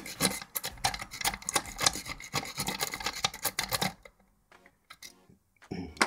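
A steel lock-pick rake scrubbed rapidly in and out of the keyway of a brass euro cylinder, with a fast run of scraping and clicking against the pins. It stops about four seconds in, and a few more scrapes follow near the end.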